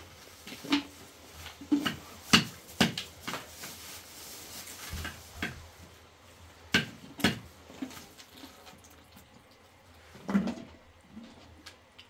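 Irregular short knocks and clatter, as of objects being handled, over a faint steady hiss.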